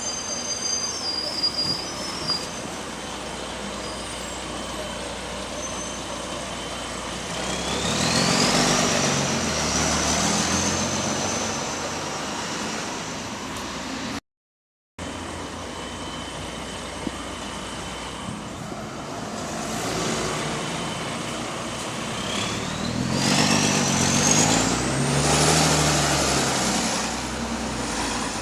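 Diesel engine of a Volvo B9TL double-decker bus pulling away twice. Each time it swells in loudness under a high whine that climbs steeply in pitch. The engine note is the loud exhaust note of a leaking exhaust.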